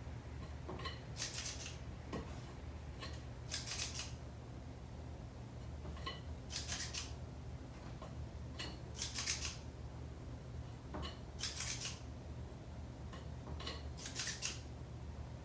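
Scoop scraping stiff cake batter out of a mixing bowl and dropping it into tins: a short scratchy rasp about every two and a half seconds, six in all, each with a faint click just before, over a low steady hum.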